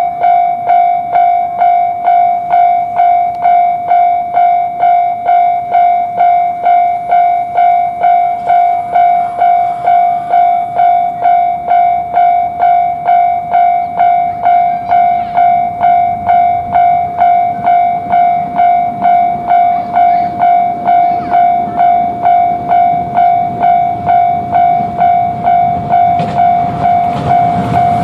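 Japanese level-crossing warning bell sounding its repeated "kan-kan" at about two strikes a second, signalling that a train is coming. Near the end, a train's rushing noise rises under it as the train reaches the crossing.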